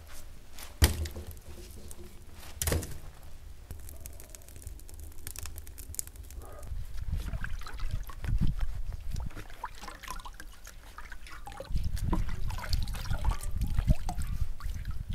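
Two sharp knocks as split logs are pushed into a wood-fired brick oven, then water sloshing and trickling in a metal basin as a river eel is scrubbed with a sponge, louder in the last few seconds.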